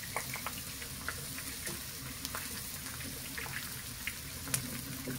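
Meatballs and potatoes frying in a pan: a steady sizzle with many small, scattered pops and crackles.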